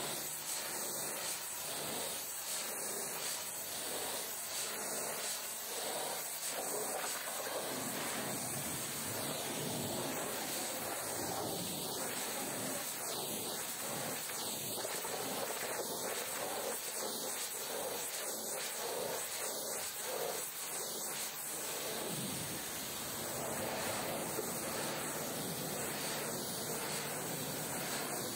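Steady hiss of a pressure washer's water jet spraying onto a truck.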